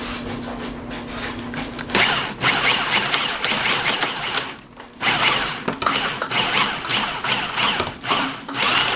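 Power drill driving a copper wire stripper as insulated copper wire is pulled through its blade, running in two spells with a brief stop a little before halfway. A steady low hum comes before it starts, about two seconds in.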